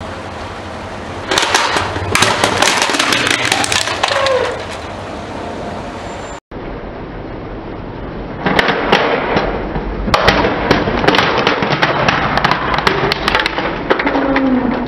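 A car tyre rolling slowly onto a hard plastic crocodile toy, which cracks and snaps apart. There are two bursts of dense crackling, each several seconds long, with a quieter pause between them.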